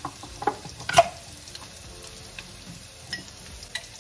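Chopped onions frying in butter in a pan, a steady sizzle, with a few sharp clicks and taps from a jar lid being worked at and twisted open, the loudest about a second in.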